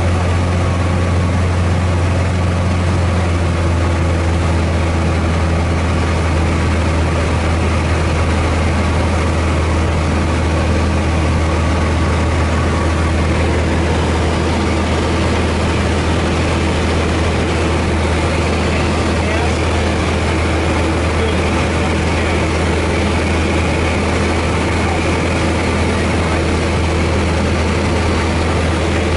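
Single-engine light airplane's piston engine and propeller droning steadily in flight, heard from inside the cabin.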